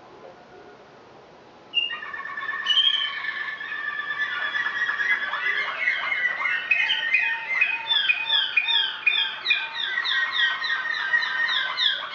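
Malinois Waterslager song canaries singing, starting suddenly about two seconds in: held, trilling notes, then over the last few seconds a fast run of short repeated falling notes, several a second.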